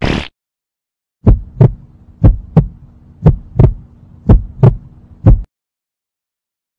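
Heartbeat sound effect: low double thumps, about one pair a second, over a faint steady hum. It starts a little over a second in, after a brief swish at the very start, and stops about five seconds in.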